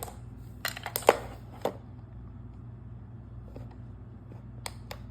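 Sharp clicks and clacks from a metal-bodied remote-control toy excavator being handled: a cluster in the first two seconds and two more near the end, over a steady low hum.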